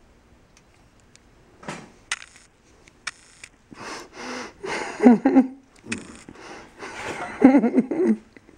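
A man groaning and gasping through a mouthful of canned monkey food, with breathy wheezes and sniffs: a reaction to its bad taste. Two louder groaning stretches come in the second half.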